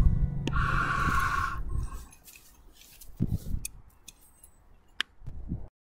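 The song's last acoustic guitar chord dies away over the first two seconds. Then come scattered clicks and rustles of a handheld camera being handled, with one sharp click about five seconds in, before the sound cuts off abruptly.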